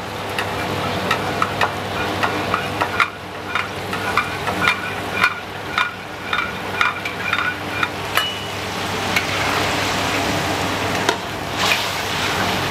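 Metal ladle working sweet and sour sauce in a large steel wok over a gas flame while cornstarch thickener is spooned in and stirred through. Short metal clinks come about twice a second for the first several seconds, then a louder, denser stirring and sizzling near the end.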